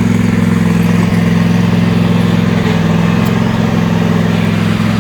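An engine running steadily close by at an even, level pitch.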